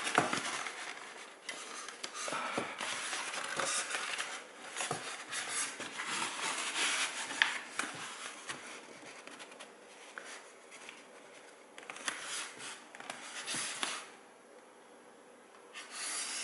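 Fatshark FPV goggles with a rubber face cup, and their strap, rubbing and scraping against a styrofoam mannequin head as they are forced on by hand, with scattered clicks and knocks. It goes quieter about fourteen seconds in, with one more short rustle near the end.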